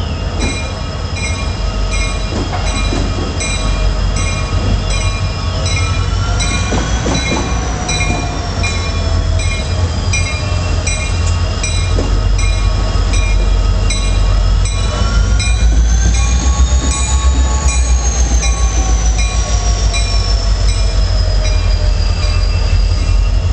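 A pair of EMD SD60 diesel locomotives with 16-cylinder 710 engines passing close at low speed, their deep engine rumble growing louder about two-thirds of the way in as they come alongside. Steel wheels squeal on the curve with a wavering pitch, over a ringing that repeats about twice a second.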